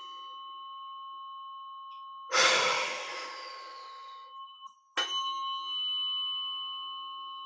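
A steady ringing metal tone, like a struck chime used in sound healing. About two seconds in, a loud forceful exhale blows out for about two seconds and fades. Then the ringing stops and is struck again sharply about five seconds in, ringing on.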